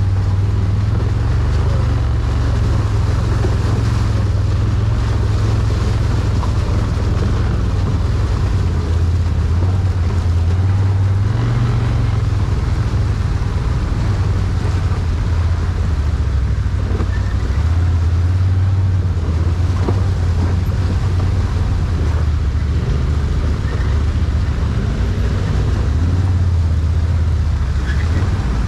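ATV engine running at a low, fairly steady pitch that shifts slightly every few seconds, with a few faint knocks.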